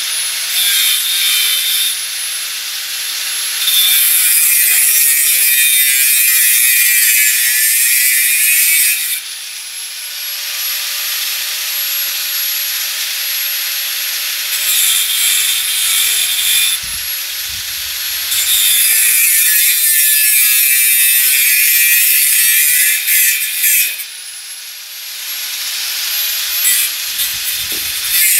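Angle grinder with a cutoff disc cutting through square steel tubing: the motor keeps up a steady high whine, with two long stretches of loud hissing cut, about 4 seconds in and again about 18 seconds in, and lighter grinding between them.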